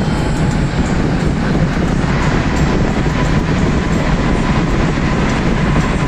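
Steady, loud rumble of a car's tyres on the road and the rush of air while driving through a road tunnel.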